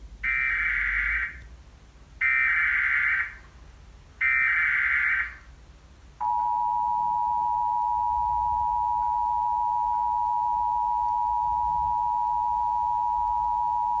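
Emergency Alert System header played through a TV speaker: three roughly one-second bursts of buzzing SAME data tones, then the steady two-tone EAS attention signal, which starts about six seconds in and holds for about eight seconds. Together they signal the start of a broadcast emergency alert.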